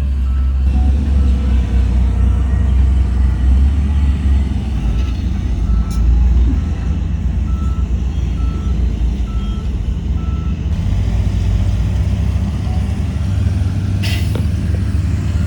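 Heavy diesel machinery engine running with a reversing alarm beeping about once every three-quarters of a second, the beeps stopping about two-thirds of the way through. A brief hiss of air near the end.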